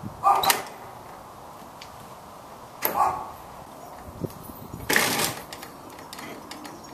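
Large wooden double gate being unlatched and swung open and shut: a sharp metal clack near the start, another about three seconds in, and a longer rough scrape about five seconds in as a gate leaf drags on the ground, the sign of a sagging gate.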